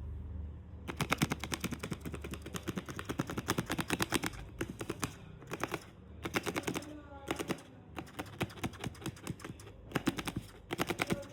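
Handmade paper fidget clickers clicked rapidly by hand, in fast runs of sharp clicks separated by short pauses, starting about a second in.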